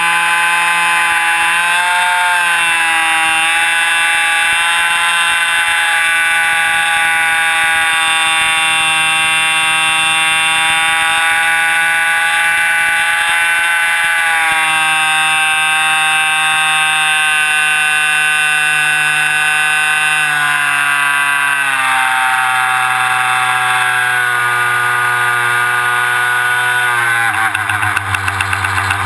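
Jett .90 two-stroke glow engine of a Midwest Super Hots RC plane running at high throttle in flight, heard close up from a camera mounted on the plane's belly. The pitch eases down a little a couple of times and falls more clearly near the end as the throttle is pulled back.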